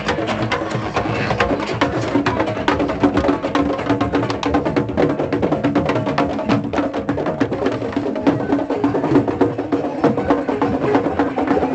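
Street drummers playing djembes and other hand drums in a fast, busy rhythm of sharp strikes, with a steady low tone held beneath them.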